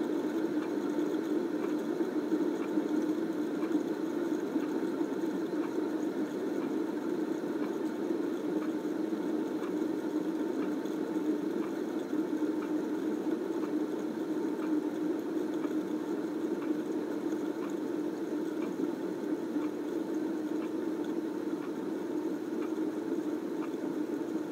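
Several fidget spinners spinning together on their ball bearings, a steady whirring hum with faint ticks.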